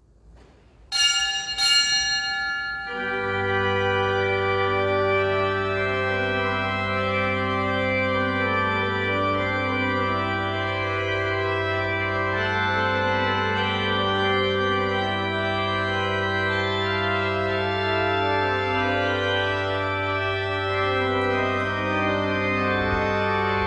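A small bell rings briefly, about a second in. Then a church organ starts up and plays sustained chords over a steady low pedal note: entrance music as Mass begins.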